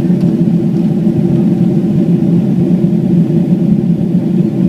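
Steady low drone inside the cabin of a Boeing 777-300ER in flight: engine and airflow noise, even throughout.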